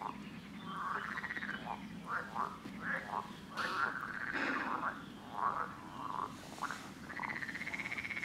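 Frogs croaking in a chorus: many short, overlapping calls of varying pitch, some drawn out into fast pulsing trills about a second in and again near the end.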